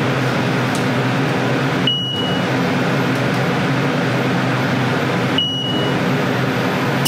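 CNC milling machine running with flood coolant spraying on the spinning gear cutter: a steady machine hum under the hiss of the coolant. Three times, about two seconds in, about five and a half seconds in and at the very end, the noise dips briefly and a short high beep sounds.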